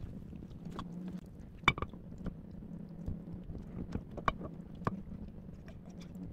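Kitchen utensils clinking and tapping: a spatula stirring food in a pot, then the food being tipped out of a pot onto a ceramic plate. There are a few sharp clinks, the loudest a little under two seconds in, over a steady low hum.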